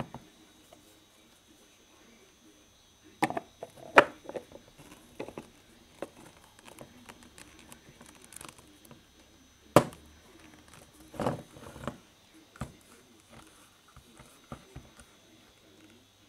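Handling noise from a painted mini-nuke replica: scattered sharp clicks and knocks as its parts are turned and it is moved about on the wooden workbench, the loudest about four seconds in and again near ten seconds.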